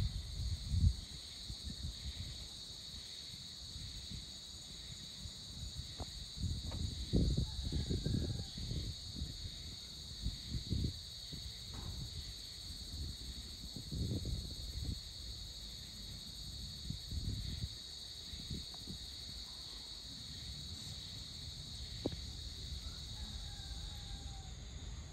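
Dusk insect chorus, a steady high shrill throughout, with irregular low gusts of wind buffeting the microphone, strongest from about six to nine seconds in and again around fourteen seconds.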